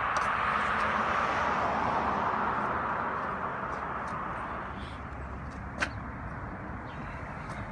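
A car passing on the adjacent street: tyre and road noise swells over the first few seconds and fades away. A single sharp click comes about six seconds in.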